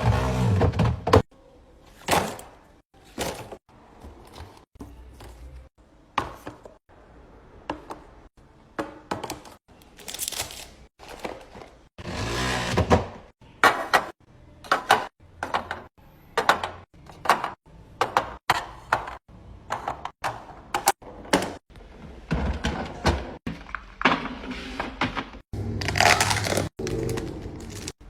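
Refrigerator being organized: many sharp knocks, clacks and thuds of containers and food items being handled and set down on shelves, with a few longer noisy stretches in between.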